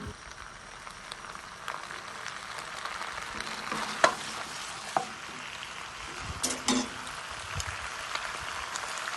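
Food sizzling steadily in a frying pan, with a few sharp clicks and scrapes of a utensil stirring it, the loudest about four seconds in and a pair near seven seconds.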